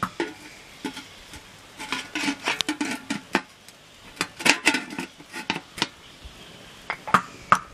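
Irregular metallic clinks and knocks of cookware, coming in a few short clusters of taps.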